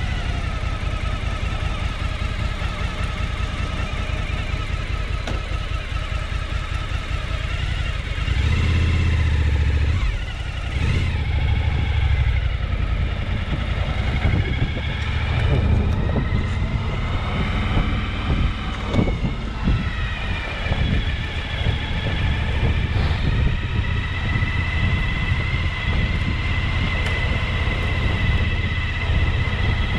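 A 2015 Suzuki V-Strom 1000's V-twin engine starting and running, warming up from cold. It gets louder about eight seconds in, and its revs rise and fall a few times through the middle.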